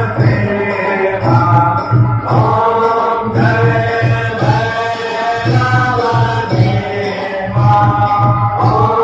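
Devotional aarti singing: voices chanting a hymn in held, gliding phrases about a second long, with a drum keeping time underneath.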